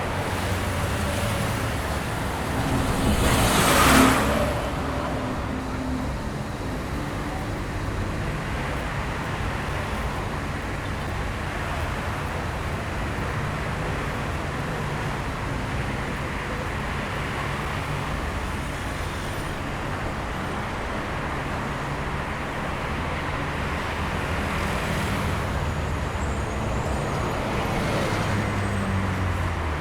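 Busy city street traffic: a steady mix of engine rumble and tyre noise from many vehicles, with one vehicle passing close and loud about four seconds in.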